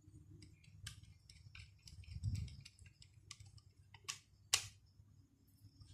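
Faint, scattered clicks and light scrapes of an electrical cable and a plastic wall socket being handled while the earth wire is fitted to its terminal, with two sharper clicks a little after four seconds in.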